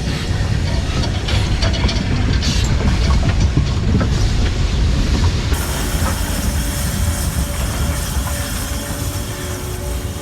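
Steam train hauled by Ivatt locomotive 46447, running on the rails: a low rumble with the clickety-clack of wheels over the track, and a steady hiss that comes in about halfway through.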